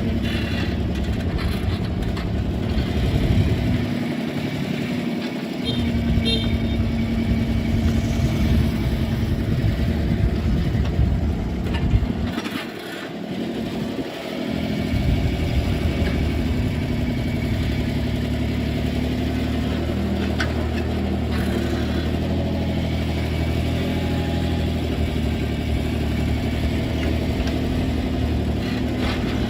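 Excavator's diesel engine running steadily under work, its low rumble dropping away briefly twice.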